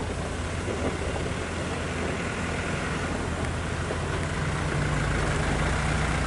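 Diesel engine of a heavy flatbed truck loaded with steel bars pulling slowly up a muddy slope, a steady low hum that grows louder over the last couple of seconds as the truck comes closer.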